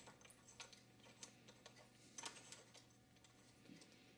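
Faint, irregular small clicks and ticks of a tripod quick plate being screwed by hand onto a camera adapter's tripod mount, over near silence.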